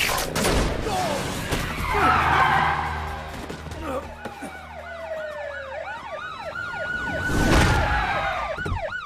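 Several sirens wailing and yelping at once, their pitches sweeping up and down and overlapping. There are loud rushes of noise at the start, about two seconds in, and again near the end.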